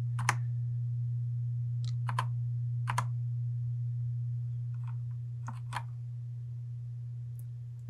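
A handful of separate key clicks from an Ajazz AK510 mechanical keyboard, about eight presses spaced unevenly with pauses between them, over a steady low electrical hum.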